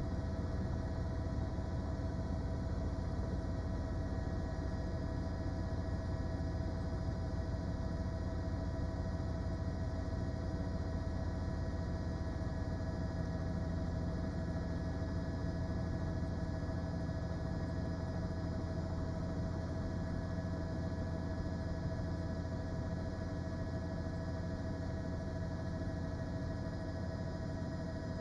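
Steady drone of a news helicopter heard from inside its cabin on an open microphone: a low rumble with a steady hum over it.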